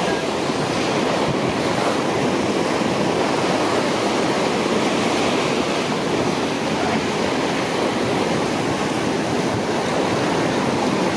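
Steady, even rushing noise of wind and water, with no pitch or rhythm.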